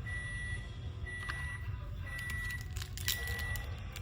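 An electronic beeper sounding a steady high-pitched beep about once a second, each beep lasting about half a second, with a few faint clicks of cards being handled.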